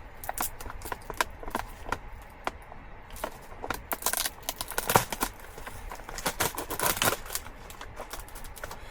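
Food packaging being handled and opened: irregular crinkling, rustling and sharp clicks, loudest about five seconds in.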